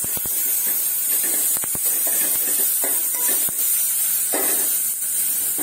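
Tomato, garlic and green chillies sizzling in hot oil in a metal pot, a steady hiss, with the scattered clicks and scrapes of a metal slotted spoon stirring against the pot.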